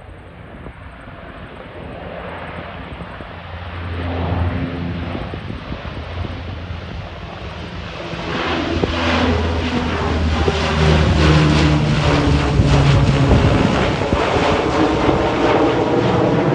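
Lockheed P-3K2 Orion turboprop flying past low, its four Allison T56 engines and propellers humming with several steady tones. The sound grows louder as the aircraft approaches and comes overhead.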